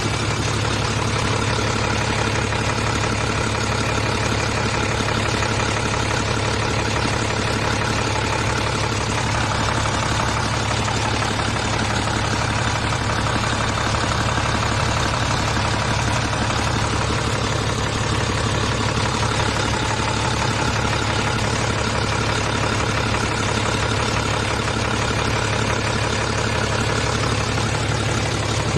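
Isuzu 6HL1 inline-six diesel engine idling steadily, running after a top overhaul.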